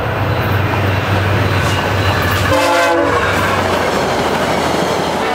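A VIA Rail F40PH-2 diesel locomotive passes at speed with its engine running, giving a short horn blast about two and a half seconds in. The passenger cars then rush past, their wheels clattering over the rails.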